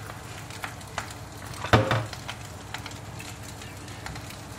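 Freshly baked Turkish börek in its tray crackling as it is handled, with light clicks throughout and a loud knock about 1.7 s in.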